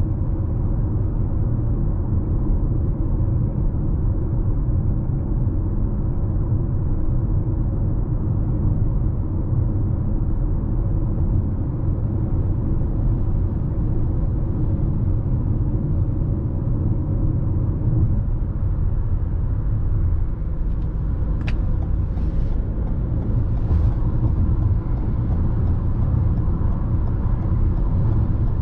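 Cabin sound of a 2021 Toyota RAV4 on the road: a steady low rumble of engine and tyres. A single sharp click comes about three quarters of the way through, and the hiss of wind and tyres grows toward the end.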